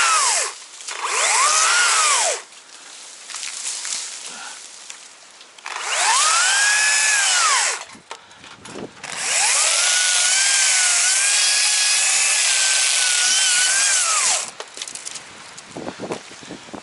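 Two-stroke chainsaw revved in short bursts of one to two seconds, then held at full throttle for about five seconds while cutting a thick fallen tree trunk, its pitch sagging slightly under load; it drops back to idle between bursts and at the end.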